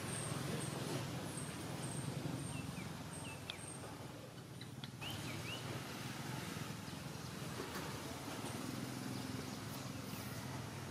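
Outdoor background noise with a steady low hum. A quick, high, repeated chirping runs through the first few seconds, and a few short falling squeaks come about three to five seconds in.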